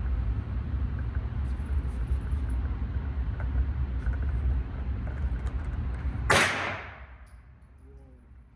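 A single gunshot about six seconds in, sharp and loud with a short ringing tail, fired after a steady low rumble.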